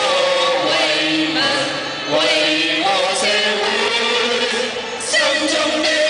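A group of men singing together in unison into microphones, amplified through a PA loudspeaker, with notes held for about a second each.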